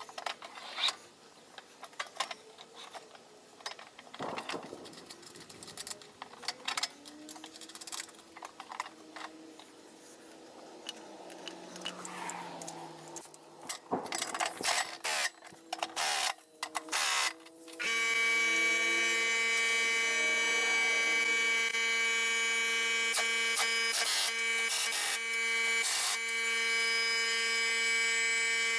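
Clicks, knocks and clatter of hand tools and metal pulleys being worked on a mower deck. About two thirds of the way in, a steady buzzing tone with many overtones starts abruptly, much louder than the clatter, and holds unchanged.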